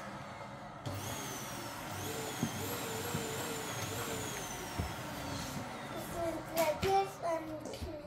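A young child's voice making a wavering, siren-like humming sound that wobbles up and down, then a few short higher notes near the end, over a steady hiss.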